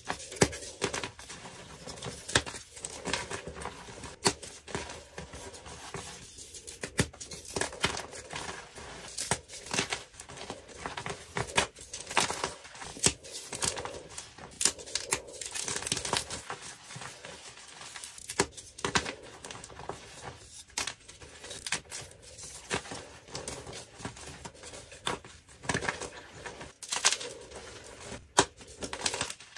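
Dyed gym chalk blocks crushed and crumbled in the hands: dry, irregular crunching and crackling as the chalk breaks into chunks and powder.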